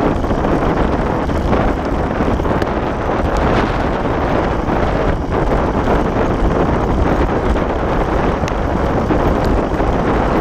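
Steady wind buffeting the microphone over the rumble of a wheeled dog rig rolling fast along a rough grass and dirt trail.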